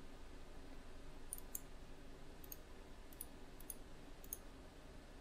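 Faint computer mouse button clicks: about seven sharp clicks, several in quick pairs, between about one and four and a half seconds in, over a faint steady low hum of room tone.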